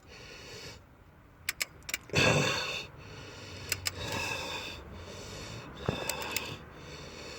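Torque wrench ratcheting on a long cylinder head bolt that is slow to tighten, with scattered sharp clicks. A loud, breathy burst comes about two seconds in.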